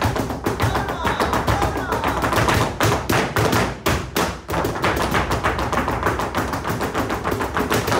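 Flamenco shoes striking the floor in rapid footwork (zapateado), many sharp taps a second, over flamenco music in a 12/8 bulerías rhythm.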